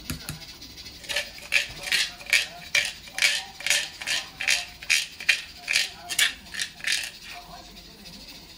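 A red plastic container being tapped over a bowl to knock its contents out, a run of about fifteen sharp, even taps at roughly two a second that stops near the end.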